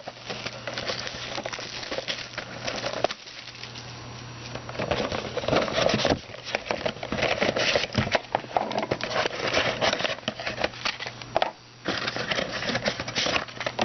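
Rustling and crackling of a sealed box of football trading cards being unwrapped and opened and its packs taken out. The crackling comes in many small irregular clicks over a steady low hum.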